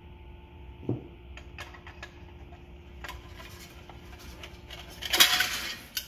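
Parts of a small outboard's rewind starter being handled in its metal housing: a knock about a second in, a few light metallic clicks, then a louder scraping clatter near the end.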